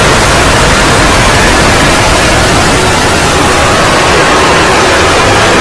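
Very loud, steady static-like noise that fills every pitch, an overdriven and heavily distorted soundtrack, with faint wavering tones just showing through.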